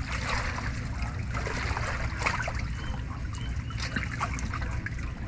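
Water trickling and splashing in irregular small spurts over a steady low rumble.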